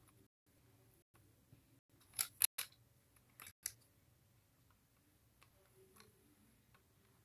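Lego plastic parts clicking as they are worked apart by hand: a quick cluster of sharp clicks about two seconds in, two more a second later, then a few faint ticks.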